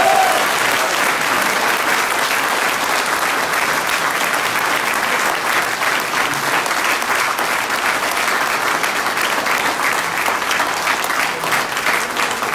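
Audience applauding: steady, dense clapping from a large crowd.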